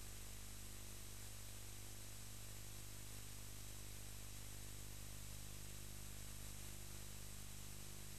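Steady hiss with a low electrical hum underneath, unchanging throughout: the noise floor of a transfer with no live sound.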